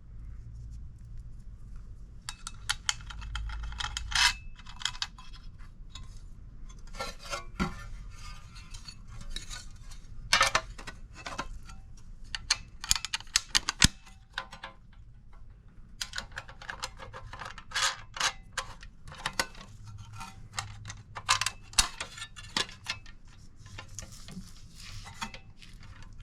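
Metal parts clinking and clattering by hand: bolts being pushed through the header flare pieces and wing nuts fitted on, in irregular clusters of sharp clicks with short pauses.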